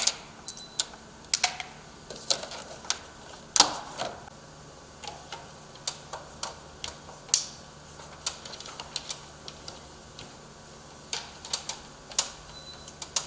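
Irregular sharp clicks and snaps, about two a second with pauses, as the strips at the bottom of a security door are cut.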